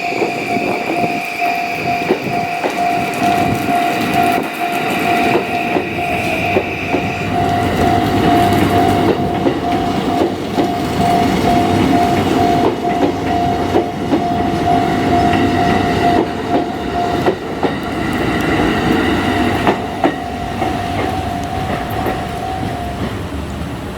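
Japanese railway level-crossing alarm sounding its repeating electronic tone while a Yokosuka Line electric train rolls over the crossing, its wheels clacking over rail joints. The alarm stops about a second before the end.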